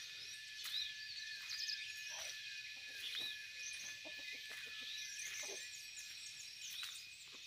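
Birds calling, with repeated short arching chirps and a few lower calls, over a steady high-pitched insect trill.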